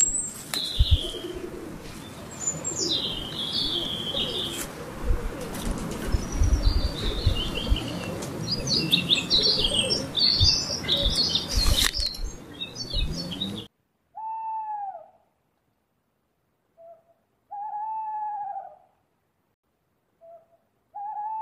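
Small birds chirping over outdoor ambience with low thumps and rumble. About 14 seconds in this cuts off suddenly to silence broken by an owl hooting: three arched hoots about a second long, each led by a short note.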